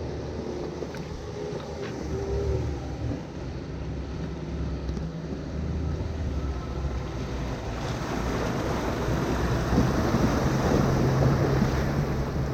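A 4x4's engine running low and steady through a river crossing. From about eight seconds in, water surges and splashes loudly around the vehicle over the engine note.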